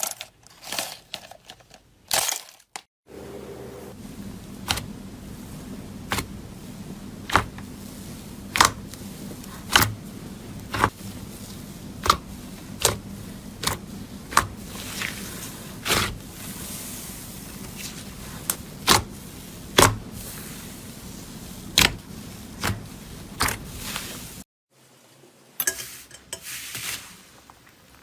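Slime being worked: sharp pops or clicks at a fairly steady pace, a little more than one a second, over a low steady hum. A brighter crackling clip comes in near the end.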